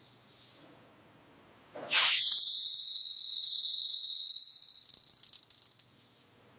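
High hiss of a shower of sparks from a brake disc being ground by machine. A first hiss dies away in the opening moment, then a loud one starts abruptly about two seconds in, holds for about three seconds and fades out near the end.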